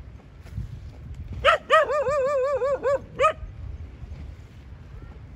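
Dog barking: a single bark, then a quick run of about seven barks close together, then one more bark.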